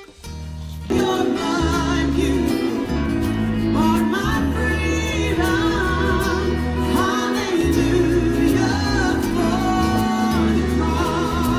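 Background music with singing: a sung melody with vibrato over a steady bass line, coming in about a second in.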